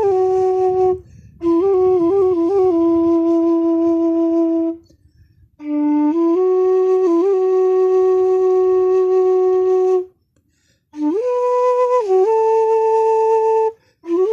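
Bansuri bamboo flute playing a slow free melody: long held notes joined by slides and quick grace-note turns, with brief pauses for breath between phrases.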